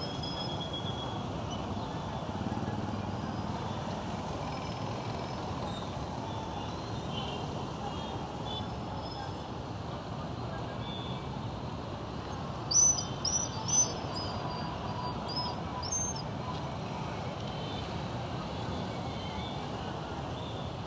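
Steady traffic noise from a crowd of boda boda motorcycle taxis and cars at a busy junction. A quick run of sharp, high chirps comes about thirteen seconds in, the loudest sounds here.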